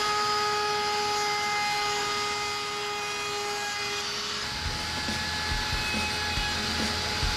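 Wood router with a round-over bit running at full speed, a steady high whine. About halfway through, a low rumble and irregular knocks come in as the bit starts cutting along the edge of a wooden board.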